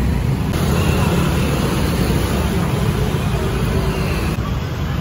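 Busy street noise: a steady wash of road traffic mixed with the hubbub of a large crowd on foot.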